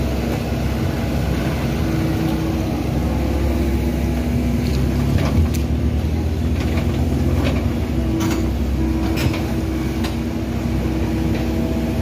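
Sumitomo SH75 mini excavator's diesel engine running steadily while the machine works, with a few short sharp knocks in the middle.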